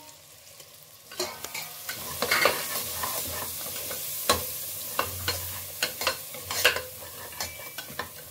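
Spatula stirring and scraping onion-tomato masala with spices frying in oil in a pressure cooker, the masala sizzling, with irregular scrapes against the pot. It starts about a second in.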